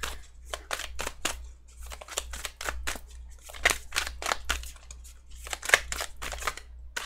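Tarot deck being shuffled by hand: a run of short, sharp card slaps and swishes, a few each second.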